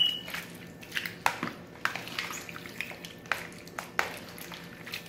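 A hand mixing wet shrimp ceviche in a plastic bowl: irregular squishes and clicks as the juicy shrimp and chopped vegetables are turned over, with a brief high squeak right at the start.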